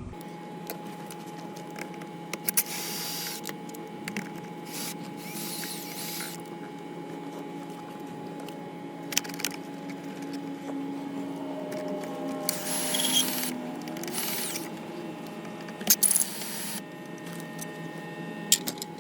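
Hands and small tools working on plastic parts of a car's steering column: scattered clicks and several short scraping and rustling bursts over a faint steady hum.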